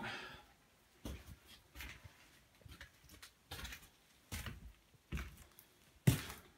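Footsteps indoors, a short thud roughly every 0.8 s, the loudest about six seconds in.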